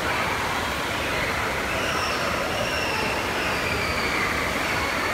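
Steady background din of a large indoor climbing gym, with a few faint, drawn-out high-pitched sounds drifting over it.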